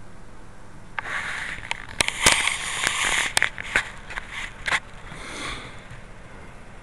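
Rustling and scraping handling noise on a pair of camera sunglasses' built-in microphone as the glasses are moved, with several sharp clicks between about one and five seconds in.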